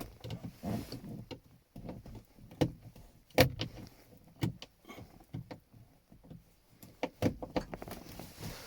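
Irregular clicks and knocks of hand tools and hard plastic being handled, with one louder knock a few seconds in.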